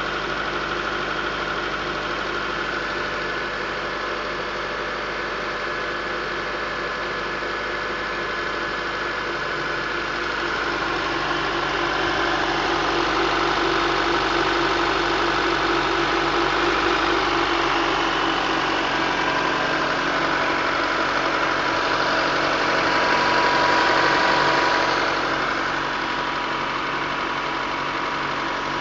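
Honda CR-V's K20A4 2.0-litre four-cylinder petrol engine running at idle. It grows louder through the middle and settles back near the end. The owner asks whether a ticking in it is normal.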